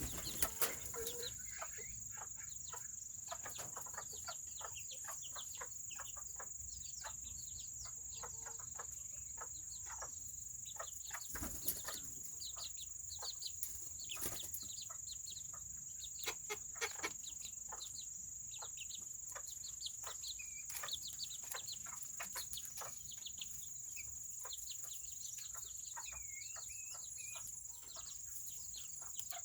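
Serama chickens softly clucking, with a few short chirps, over a dense, irregular patter of small ticks and a steady high-pitched whine.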